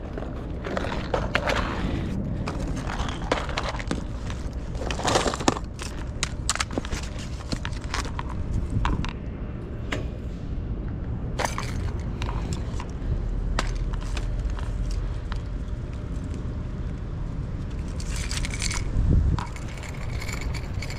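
A landed sea bass being handled in a landing net on paving stones: irregular clicks, knocks and scraping of net mesh and frame, thick for the first half, thinning out, with another short scuffle near the end, over a low wind rumble on the microphone.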